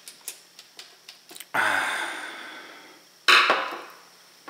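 Lid of a lacquered wooden watch winder box being lifted open on its hinges: a few light clicks, then two sharp knocks, about a second and a half in and just after three seconds in, each ringing briefly as it fades.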